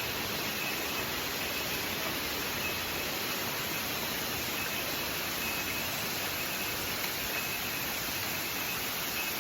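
Steady rushing of a waterfall: an even wash of falling water with no break or change.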